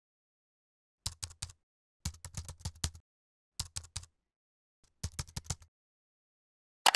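Computer keyboard typing sound effect: four short runs of keystrokes with silence between them, then a louder click near the end.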